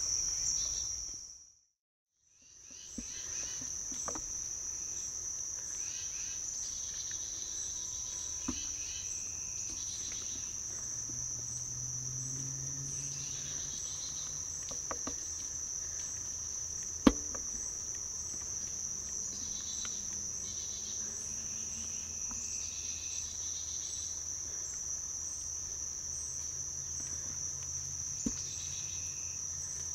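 Steady high-pitched chorus of crickets and other insects, which cuts out for about a second near the start before coming back. A few faint clicks sound over it, and there is one sharp tick about 17 seconds in.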